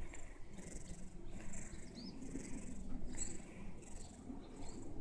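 A sleeping cat breathing: soft hissy breaths recur about every half second to second, with a few faint squeaky whistles, over a low steady hum.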